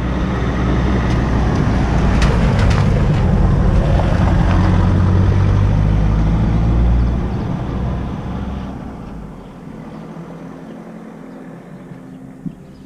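A motor vehicle passing on the street: a loud, low rumble that fades away about eight to nine seconds in.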